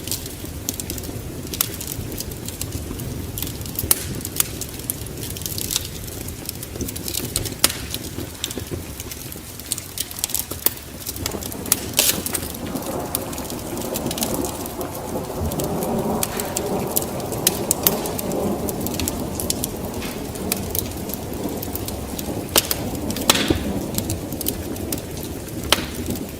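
Steady rain, with a long roll of thunder that builds from about halfway through and fades a few seconds later. Sharp crackles of a wood fire pop through it.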